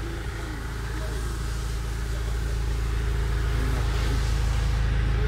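Forklift running steadily: a constant low drone that grows slightly louder towards the end.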